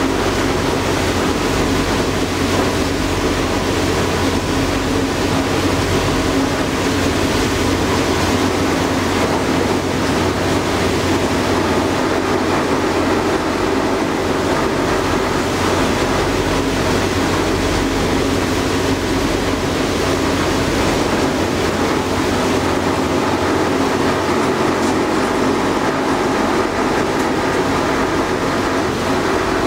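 Passenger ferry's engine running steadily under way, a constant low drone with steady hum tones and an even hiss over it.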